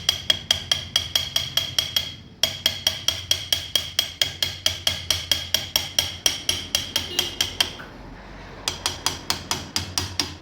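Hammer striking metal in quick, even taps, about four ringing blows a second in three runs, with a brief pause about two seconds in and a longer one near eight seconds: driving a new steering rack bush into a Maruti Swift Dzire's steering rack.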